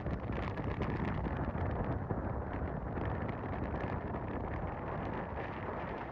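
Strong sea wind buffeting the microphone: a steady, rough, gusting rumble.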